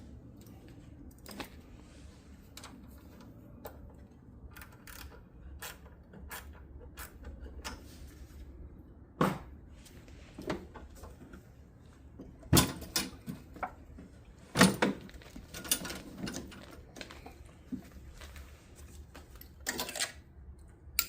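Hand tools clicking and knocking against metal while a spark plug is taken out of a small snowblower engine: scattered light clicks, with a few sharper knocks through the middle and one near the end.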